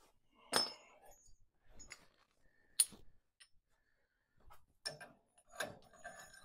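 A handful of irregular metallic clanks and knocks, the sharpest about three seconds in, from steel parts and tools being worked while fitting a stubborn shackle for the cultivator disc on a Farmall 140 tractor.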